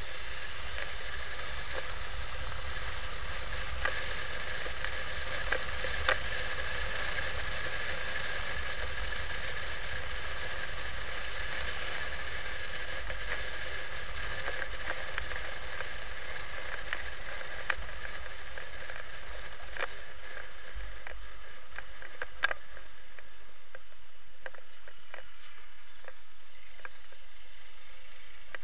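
Motorcycle riding along a street, heard from the bike: steady muffled road and wind noise with a faint high whine, broken by scattered sharp clicks and rattles, the loudest about six seconds in and again in the later part.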